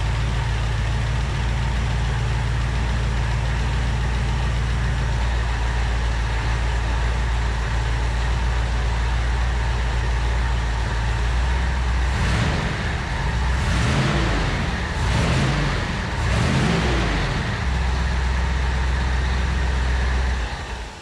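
Willys Jeep engine running steadily, just brought back to life after a new ignition coil, distributor rotor and spark plug wires were fitted. About twelve seconds in it is revved up and down several times, then settles back to a steady run.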